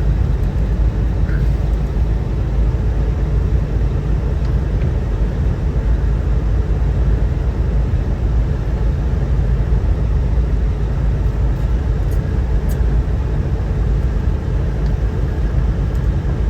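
Steady rumble of a car driving at speed, heard from inside the cabin: tyre, road and engine noise, heaviest in the low end.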